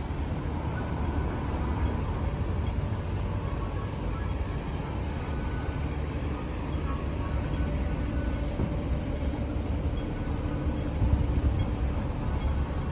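Steady low rumble of city road traffic, an even background hum with no single vehicle standing out.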